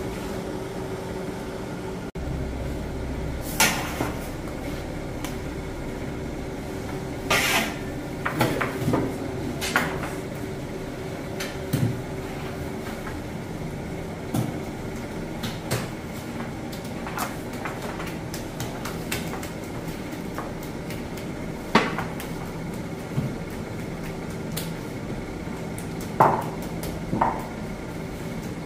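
Scattered knocks and clanks of work in a traditional sangak bakery over a steady hum, a handful of them sharper and louder than the rest.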